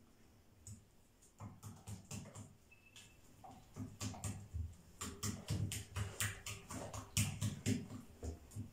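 A silicone-coated whisk beating a thick, wet batter of flour, water, starch and egg in a ceramic bowl, its wires clicking and scraping against the bowl. The strokes are sparse at first, then settle into a quick, regular beat of about three a second from about halfway.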